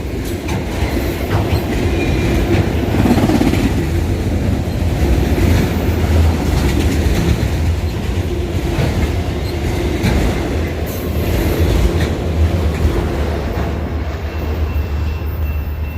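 Autorack freight cars rolling past at close range: a steady heavy rumble of steel wheels on rail, with scattered clicks as the wheels cross rail joints. The high hiss thins out in the last couple of seconds.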